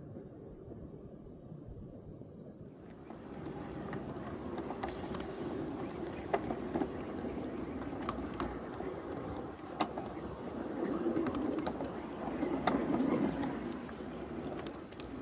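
A 7¼-gauge miniature railroad train of log-loaded flatcars rolling along the track: a steady rumble of wheels on rail with scattered sharp clicks and knocks. It gets louder about three seconds in, when the sound is heard from aboard a flatcar.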